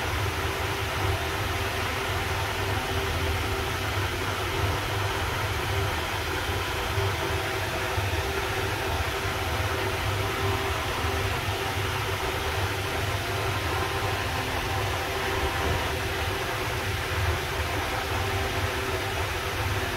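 Finolex wall fan running steadily: an even rush of air from the blades with a steady low hum from the motor.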